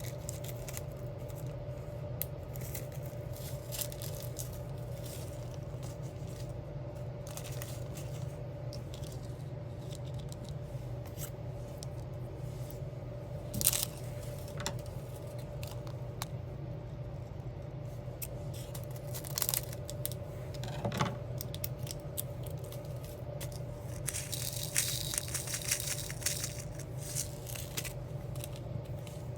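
Small clicks, taps and scrapes of diamond painting: resin gems picked up with a pen and pressed onto a sticker sheet, over a steady low hum. A sharper click comes about 14 s in, and a denser scratchy rubbing near the end.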